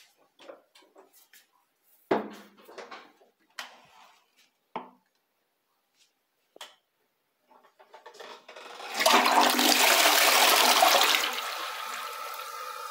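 A few sharp knocks and clicks, then a toilet flushes: a loud rush of water for about three seconds, dropping to a quieter steady hiss with a faint whistling tone as the tank refills.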